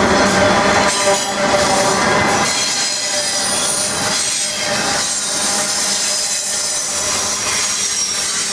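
Norfolk Southern intermodal freight train's double-stack well cars rolling past, a steady loud rumble and clatter of wheels on rail with thin, high wheel squeal drifting in and out.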